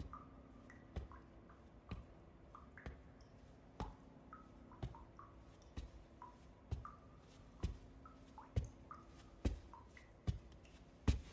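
Slow footsteps, about one a second, growing louder as someone approaches, with faint water drips plinking between the steps.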